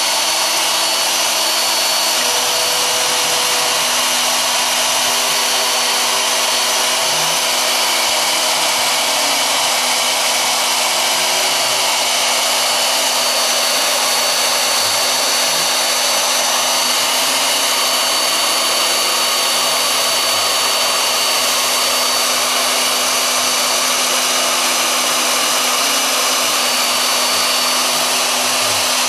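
Small CNC milling machine's spindle running steadily while cutting HDPE plastic: a constant loud whirring hiss with a steady hum under it. Fainter low tones slide up and down beneath it as the stepper-driven axes speed up and slow down.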